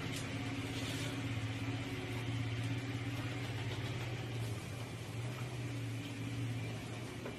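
A steady low mechanical hum, like a motor running, with a few faint clicks of eating by hand.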